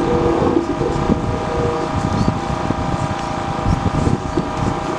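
Wind buffeting the microphone in gusty low rumbles, over a steady hum, with brief fragments of voices.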